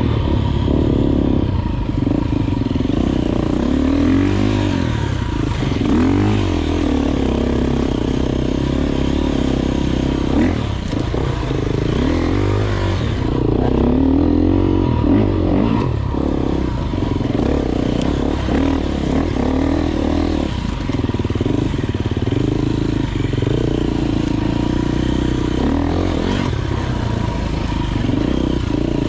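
Enduro motorcycle engine being ridden off-road, its revs rising and falling again and again as the throttle is worked.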